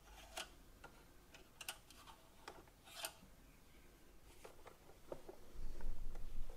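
Faint, scattered small clicks and light rubbing from fingers handling a brass model steam locomotive at its tender coupling hook. A low rumble sets in near the end.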